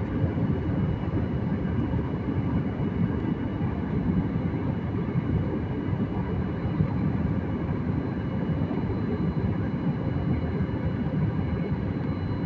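Airliner during takeoff: a steady low rumble of jet engines and airflow with a faint, steady high whine.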